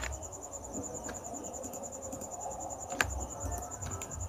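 A few sharp computer mouse clicks, the loudest about three seconds in, over a steady, high, rapidly pulsing trill in the background.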